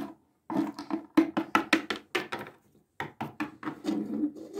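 Small plastic toy furniture being handled and knocked on a tabletop: two runs of quick, light knocks and clatter, the first about half a second in and the second about three seconds in.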